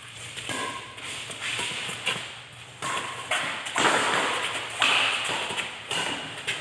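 Badminton rally: rackets striking the shuttlecock and players' shoes shuffling and scuffing on the dirt court, an uneven run of taps and scrapes.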